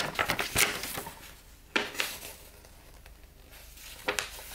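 Paper rustling and crackling as a folded instruction leaflet is handled and moved about, in irregular crisp bursts with a few sharp taps, the strongest just before two seconds in.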